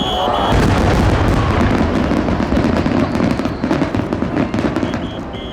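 Aerial fireworks bursting and crackling in rapid succession, a dense continuous crackle over a low rumble that sets in about half a second in.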